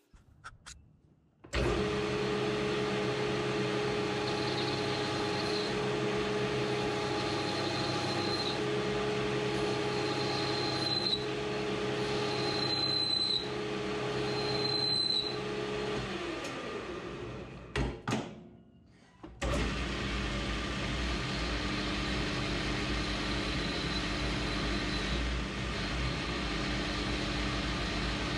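Metal lathe running while turning a metal shaft with a tipped insert tool: a steady motor hum with a faint high whine that comes and goes. About 16 seconds in it winds down, with a couple of clicks and a brief quiet, then starts up again and runs steadily.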